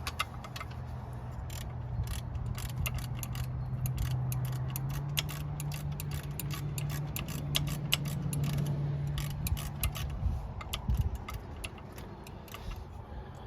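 Ratchet and socket clicking in quick runs while undoing heat shield bolts, over a steady low hum that stops about ten seconds in.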